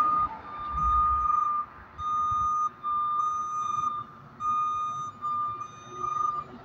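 Front-loader garbage truck's reversing alarm beeping about once a second as the truck backs up, each beep a steady high tone, over the low rumble of the truck.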